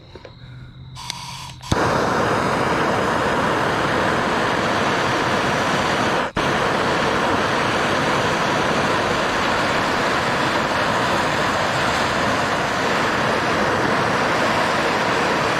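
A Bernzomatic trigger-start propane torch clicks alight and burns with a steady, loud hiss while heating aluminum sheet for brazing, cutting out for an instant once partway through.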